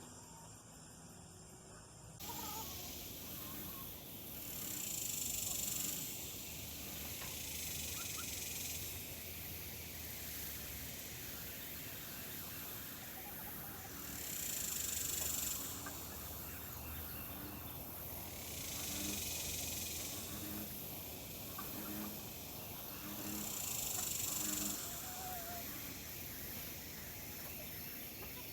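High-pitched insect buzzing that swells and fades every four to five seconds.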